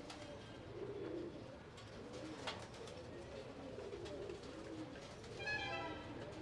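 Pigeons cooing, low and repeated, with several birds overlapping.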